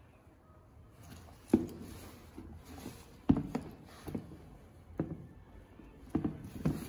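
Handling noise as a pair of knit sneakers is moved about by hand on a cardboard shoe box: soft knocks and rustles, about seven in all. The loudest come about one and a half seconds in and a little over three seconds in.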